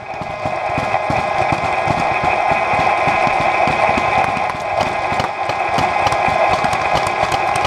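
Paintball markers firing in rapid, irregular pops over a steady, loud mechanical whir.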